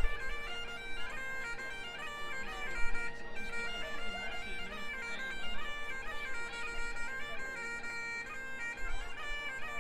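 Bagpipes playing a tune over a steady drone, the melody stepping from note to note throughout.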